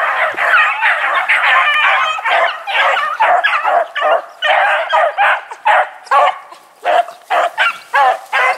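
A pack of beagles baying on a hot rabbit track, many voices overlapping at first, then thinning to separate barks in the second half.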